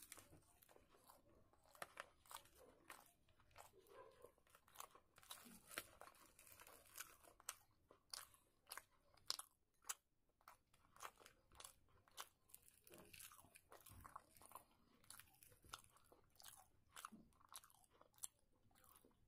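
A person chewing luchi (puffed fried bread) with chana curry close to the microphone, with quiet, irregular mouth clicks all through.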